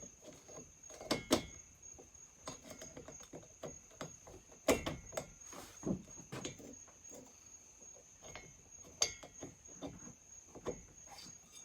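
Irregular knocks and clicks of metal chainsaw parts being handled as a piston with its rings is worked into the cylinder of a McCulloch 5-10 chainsaw, with a ring that will not seat. Steady high chirring of crickets runs underneath.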